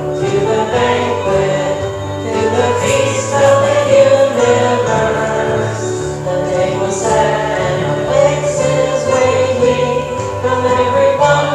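A hymn sung by several voices, accompanied by a small stringed instrument such as a ukulele.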